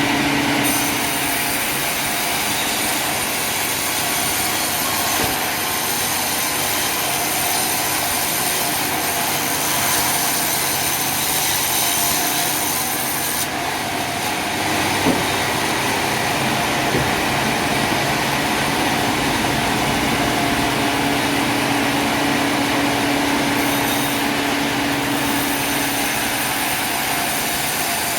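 Sawmill machinery running steadily: a continuous mechanical rumble and hiss with held whining tones, and a single click about halfway through.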